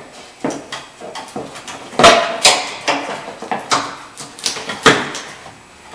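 Sharp clicks and metallic clinks of pliers working the small plastic clips that hold the hood release cable, the clips being squeezed and pulled free. The loudest knocks come about two seconds in and again near the end.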